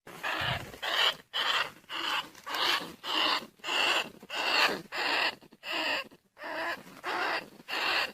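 Rat-luring call: a steady run of short, scratchy squeaks of rice-field rats and bandicoot rats, about two a second, played to draw the rats in.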